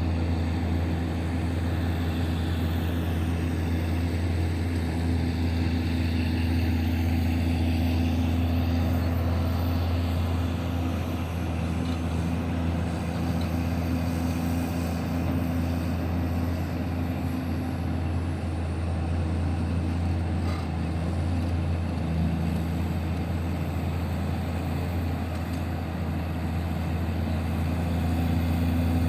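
Heavy diesel engine of mining machinery running steadily with a low, even drone.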